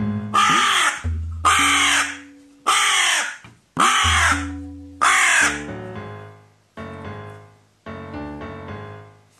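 Carrion crow cawing five times, one loud caw about every second, over soft background music that carries on alone once the calls stop.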